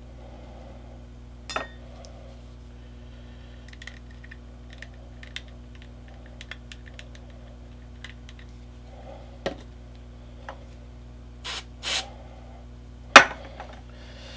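Scattered small clicks and taps of hands handling laser-cut parts and glue bottles on a tile work board, with a few sharper knocks in the second half, the loudest near the end. A steady low hum runs underneath.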